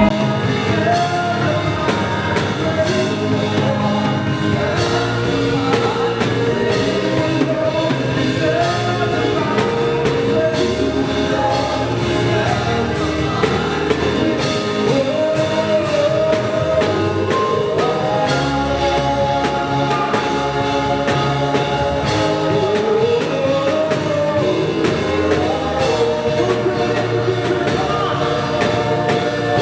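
Worship music: singing voices over a band accompaniment.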